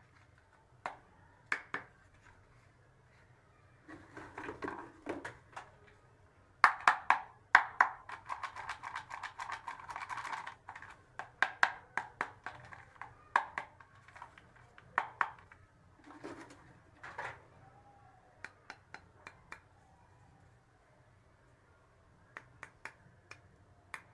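Small plastic toy pieces being handled and set down: scattered sharp clicks and taps, thickening into a busy stretch of rattling clatter in the middle, then sparse again with a short quiet gap near the end.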